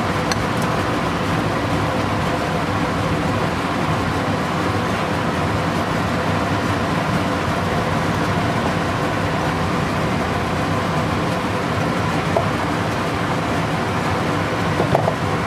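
Chilli chicken simmering in its sauce in a pan on the stove: a steady hiss with a low hum underneath, and a few soft spatula scrapes near the end.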